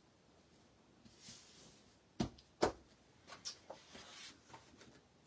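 Hands handling card stock and craft supplies on a work table: paper rustling and light clicks, with two sharp knocks close together a little over two seconds in.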